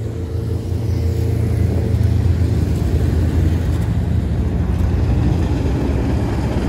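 Steady low rumble of a truck engine running on the road alongside, mixed with road and wind noise, swelling about a second in.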